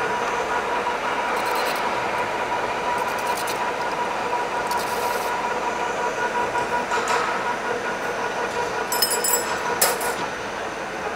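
Metal lathe running at one constant speed with a steady whine. About every two seconds comes a short burst of metal scraping as the threading cutter chamfers the outer edge of a ring pressed against the spinning chuck.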